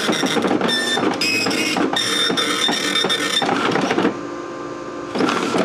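Okidata Pacemark 3410 9-pin dot matrix printer printing a test page: the print head's fast, rasping buzz as it sweeps across the wide carriage, stopping about four seconds in, then one short burst near the end.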